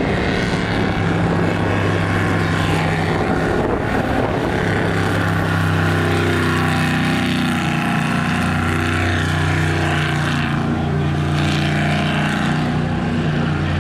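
Jet sprint boat's engine running hard as the boat races through the course's tight turns, its pitch rising and falling several times, over the hiss of the water jet and spray.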